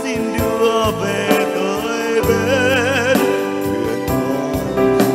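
A male singer sings a slow Vietnamese Catholic hymn to Mary, holding long notes with vibrato over an instrumental backing.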